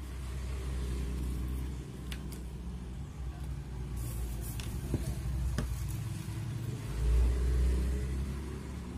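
A steady low rumble that swells about seven seconds in, with a few light clicks and crackles of a newspaper pattern being handled.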